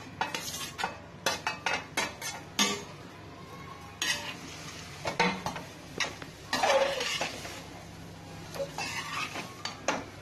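Perforated stainless steel ladle scooping and stirring idiyappam in a stainless steel pan, mixing in the lemon seasoning. The ladle clicks and scrapes against the metal in irregular strokes, with a longer, louder scrape about two thirds of the way through.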